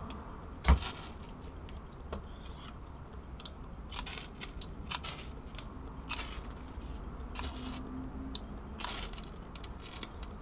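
Small ferrocerium rod scraped hard along the spine of a steel knife blade, striking sparks: a series of short, irregularly spaced rasping scrapes, the loudest about a second in.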